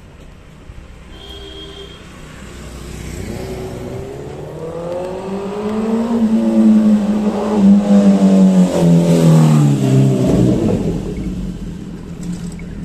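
A motor vehicle's engine passes close by. It grows louder as the vehicle approaches, is loudest a little past the middle, then drops in pitch and fades as it goes away.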